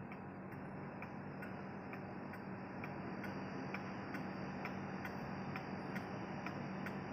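A 70–75-year-old spring-driven pendulum wall clock with brass works ticking as its pendulum swings: an even tick-tock at about two and a half beats a second, over a steady low hum.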